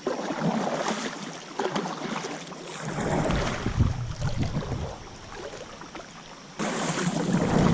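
High, fast-moving river water rushing and splashing around a kayak, with wind buffeting the microphone as a low rumble from about three seconds in. The noise jumps abruptly louder near the end.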